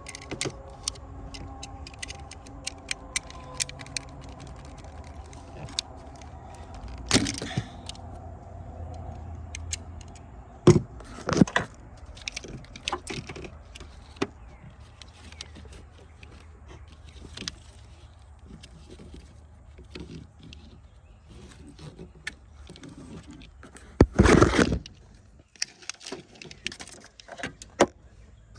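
Hand work on car parts: scattered clicks, light metallic rattles and scrapes of tools and wiring being handled, with a few louder scrapes or knocks, the longest and loudest about 24 seconds in.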